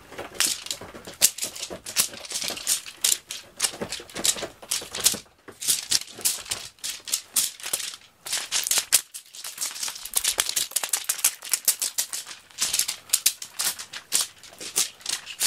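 Crinkly plastic of a cat teaser toy rustling and crackling in quick, dense bursts as it is waved and flicked about, with a short pause about nine seconds in.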